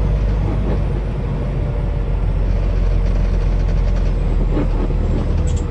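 Semi truck's diesel engine running with a steady low drone under a haze of road noise, heard from inside the cab.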